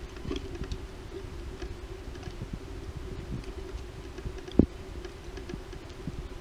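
Snow shovel working deep snow: faint scraping and crunching with scattered small ticks, and one sharper thump about four and a half seconds in, over a steady low hum.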